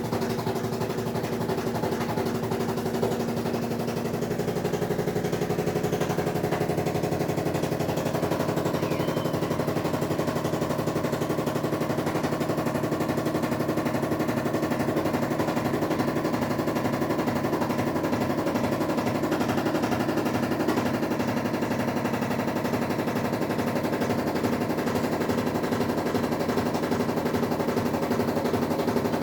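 Samsung washing machine draining with a loud, steady hum and a rapid rattling buzz: the abnormal "huge noise" a new machine makes during the drain.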